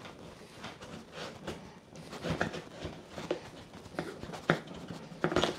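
A large kitchen knife sawing and levering through a whole pumpkin's hard skin and flesh, giving irregular crunches and creaks. Sharper cracks come near the end as the pumpkin splits in half.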